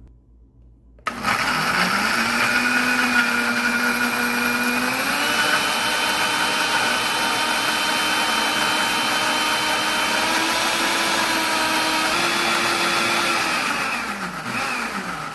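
Mondial Turbo blender motor switching on about a second in and blending chopped peppers, garlic, onion and vinegar into a sauce. Its steady whine steps up in pitch a few times, then winds down near the end as it is switched off.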